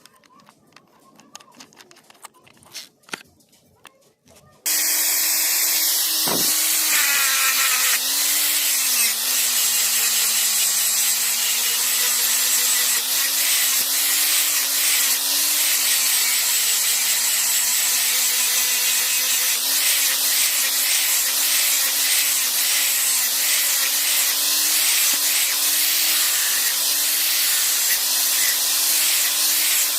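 Electric grinder starting about five seconds in and then running steadily against metal, its motor pitch dipping and wavering as it is pressed into the work. Before it starts, only a few faint clicks.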